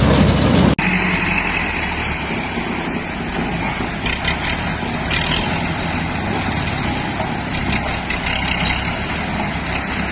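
Wood chipper machine running steadily, with a few short crackles now and then. There is an abrupt cut just under a second in, after which the low rumble is lighter.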